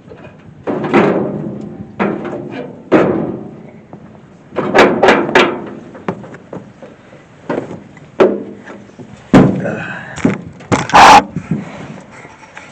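Irregular metal clanks and thunks as sheet-metal inspection covers on a combine's bean header are unfastened and lifted open, with a loud ringing clang near the end.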